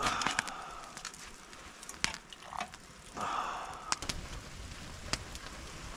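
A campfire crackling, with scattered sharp pops, and a short louder rush of noise a little after three seconds in.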